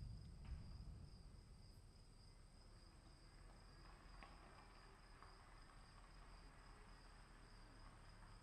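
Crickets trilling faintly and steadily in a high, unbroken tone, with a faint low rumble fading away in the first second.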